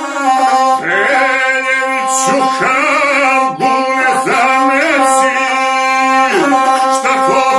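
Gusle bowed on a steady held pitch while a man sings a South Slavic epic song over it, his voice bending and wavering in ornamented phrases. The singing comes in about a second in.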